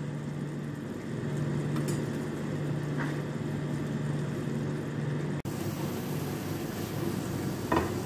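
Steady low hum of a small motor, with a few faint light clicks. A little over five seconds in, it cuts off abruptly and a steady hiss takes over.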